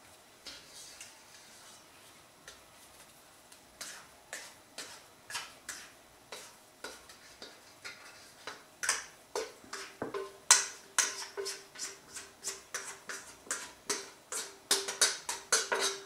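Plastic dough scraper scraping and knocking against the inside of a stainless steel mixing bowl while loosening risen bread dough. The strokes are sparse at first, then come faster and louder after about eight seconds, and the steel bowl rings with a steady tone under them.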